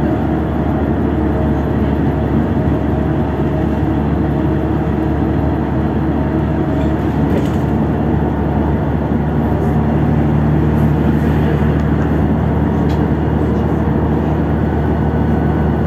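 Interior drive noise of a LiAZ 6213.65 articulated city bus cruising at highway speed: steady engine drone mixed with road and tyre rumble, the engine tone swelling slightly about ten seconds in.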